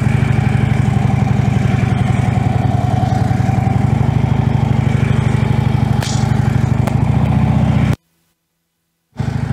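Harley-Davidson Road King's V-twin engine running steadily at low speed, a low, evenly pulsing note. It cuts off abruptly about eight seconds in, and a short burst of engine sound comes back just before the end.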